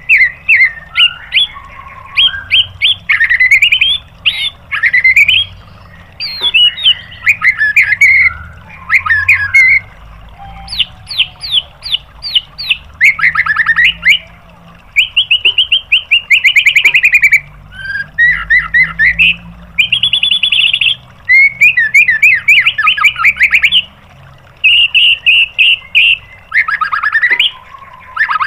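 White-rumped shama (murai batu) singing a loud, varied song: fast trills and rapid-fire repeated notes (the 'tembakan' phrases) mixed with whistled glides, delivered in bursts a second or two long with short pauses between.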